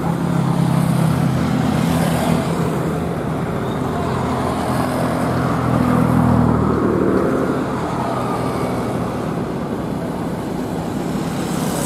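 Heavy truck diesel engine running slowly at low revs, with road traffic around it. A car passes close by about six seconds in.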